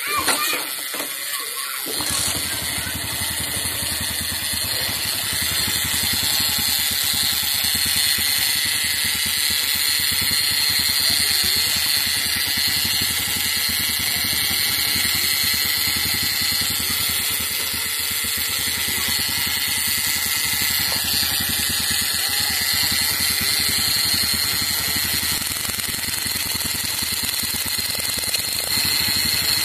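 Small single-cylinder scooter engine starting up about two seconds in and then running steadily at idle. Its spark comes from a homemade fish-stunner circuit powered by a 12 V battery rather than the bike's own ignition.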